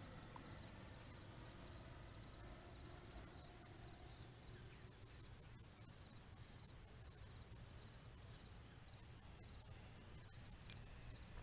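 Steady, faint, high-pitched insect chorus from the surrounding grass and trees, holding one pitch without change, over a low background rumble.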